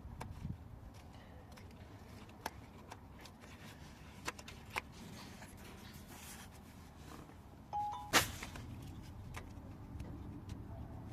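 Scattered small clicks and knocks of tools and parts being handled during car repair work. About eight seconds in there is a brief squeak that steps up in pitch, then one sharp, louder knock.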